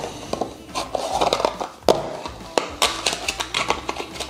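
Cardboard advent-calendar door being pried open with a thin metal pick and peeled back by hand: irregular scraping, tearing and sharp clicks of the card.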